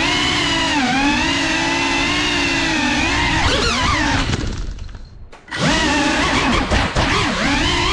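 Geprc Cinelog 35 cinewhoop drone's motors and propellers whining, the pitch rising and falling with the throttle. A little past four seconds the whine dies away almost to nothing as the drone drops to the floor, then the motors spool back up suddenly about five and a half seconds in, with a few short knocks just after.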